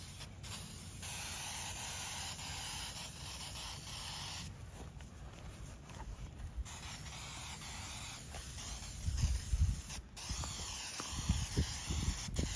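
Aerosol spray-paint can hissing as paint is sprayed onto grass to mark a line, in long bursts with a few short pauses. A few dull low thumps come near the end.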